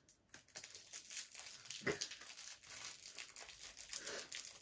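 Crinkling and crackling of shiny foil candy wrappers as Christmas tree candies are unwrapped by hand, with one sharper crackle about two seconds in.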